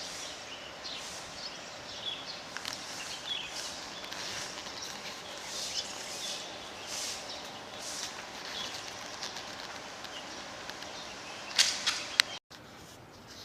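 Outdoor ambience with birds chirping in short, scattered calls. A few sharp knocks come near the end, followed by a sudden break in the sound.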